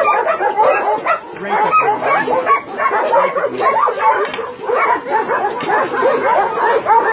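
Many dogs barking and yipping at once, a dense, continuous din of overlapping calls with no pause.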